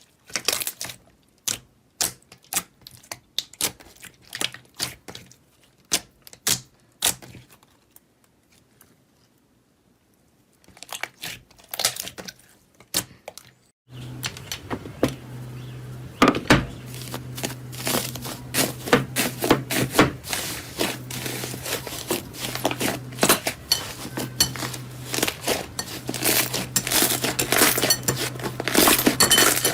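Slime being squeezed and pressed by hand, giving sharp crackling and crunching clicks, sparse at first with a short pause. About halfway through the crackling becomes dense and continuous, with a steady low hum underneath.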